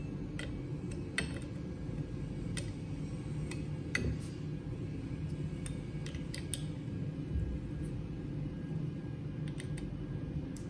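Scattered light metallic clicks and clinks of a hex key turning and seating socket cap screws in an aluminium gearbox housing plate, over a steady low hum.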